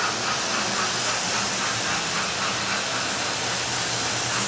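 Digital sound-fitted model of the GWR King class steam locomotive 6009 King Charles II, its sound decoder playing a regular beat of steam chuffs, about three a second, over a steady hiss as the model runs.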